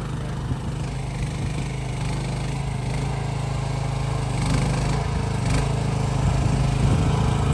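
Mini excavator's small engine running steadily under load, getting a little louder toward the end.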